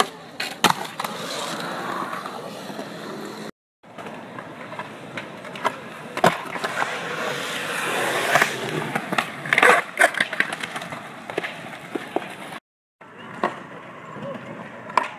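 Skateboard wheels rolling on concrete, broken by sharp clacks of the board popping and landing. The sound drops out to silence twice for a moment.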